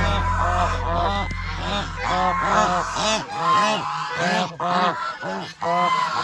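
A flock of domestic geese honking, many rapid repeated honks from several birds overlapping. A low steady hum underneath stops about halfway through.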